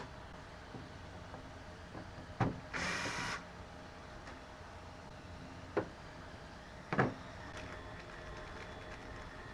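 A small electric motor whirs briefly about three seconds in, among a few sharp clicks and light knocks of parts and tools being handled.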